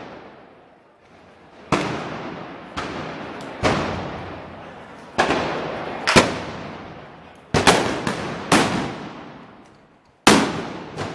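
Loud gunpowder blasts, about nine at irregular intervals of roughly one to one and a half seconds, each sharp crack followed by a long echoing fade.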